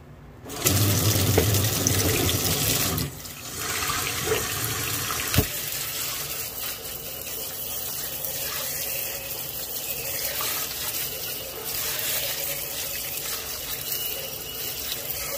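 Tap water running into a sink and splashing over and into glass mason jars as they are rinsed. The flow is loudest for the first few seconds, then settles a little lower and steady, with a single knock about five seconds in.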